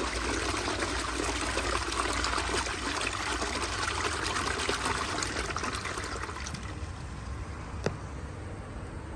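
A 1990 Vaal Hibiscus close-coupled toilet flushing: water rushing and swirling through the bowl, fading about two-thirds of the way through to a quieter trickle. A single sharp click near the end.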